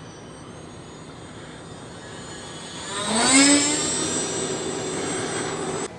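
Electric ducted-fan RC model jet (Banana Hobby Blitz RC A-10 Warthog, twin ducted fans) flying overhead: a faint steady whine that grows louder about three seconds in, with its pitch rising and then holding.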